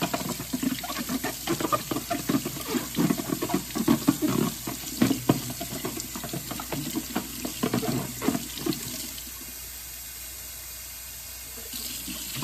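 Hot water running from a kitchen faucet into a stainless steel sink as a plastic ketchup bottle is rinsed under it, the bottle rinsed to flush out leftover soap. Water splashes irregularly off the bottle and hands for about nine seconds, then settles into a steady, quieter stream before rising again near the end.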